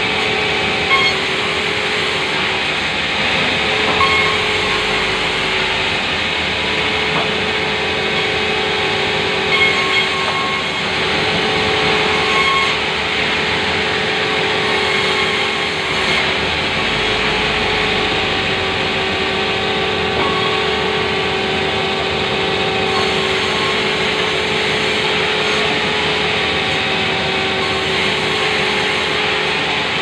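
Sawmill saw running steadily with a constant hum while rough timber boards are fed through and ripped, with a few short knocks of wood against the machine.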